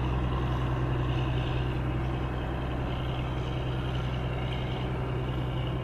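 Tugboat's diesel engine running steadily under load as it tows a barge: a constant low drone.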